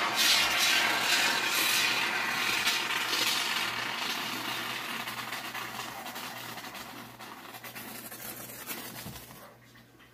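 Hiss of a can of Great Stuff expanding spray foam being sprayed, loudest in the first few seconds, then fading gradually until it stops near the end.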